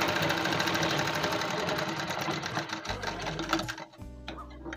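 Treadle-powered sewing machine stitching through cloth: a rapid, even run of needle strokes that stops near the end.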